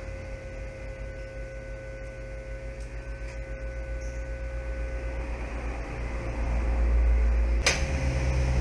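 Hot-air rework gun running with a steady hum and whine, used to desolder a surface-mount fuse from a laptop LCD board. The hum grows louder over the last couple of seconds, and there is one sharp click near the end.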